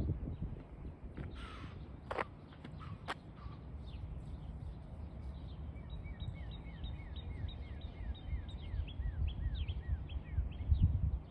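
A deer's short, breathy alarm snort about a second in, followed by a couple of sharp clicks. Later a bird calls a run of quick, downslurred notes, about two a second, over a low, steady rumble.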